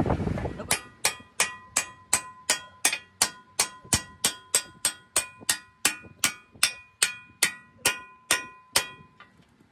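Hammer tapping a steel pin into the mounting eye of a tractor front blade's hydraulic cylinder: a quick, even run of about three metallic clinks a second, each with a short ring, stopping shortly before the end.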